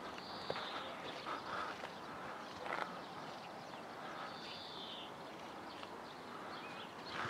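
Outdoor ambience: a steady, low background hiss with a few faint clicks, and a bird giving a short arched call twice, about half a second in and again about four seconds later.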